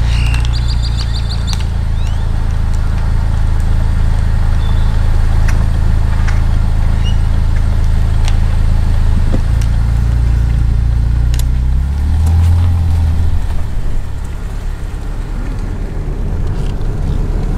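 Car engine running with a steady low hum, heard from inside the vehicle. About twelve seconds in the engine note shifts and the car moves off, leaving a rougher road noise.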